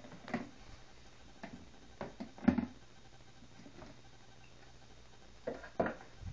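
Handling noise from a clear plastic snake tub and metal feeding tongs: a handful of scattered knocks and clatters, the loudest about two and a half seconds in, and a close pair near the end.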